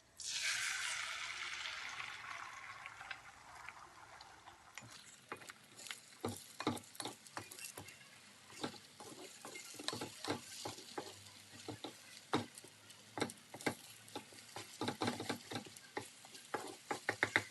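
Food going into a hot oiled pan with a sudden loud sizzle that fades over the next few seconds. Then a utensil taps and scrapes against the pan as the food is stirred, the taps coming faster near the end.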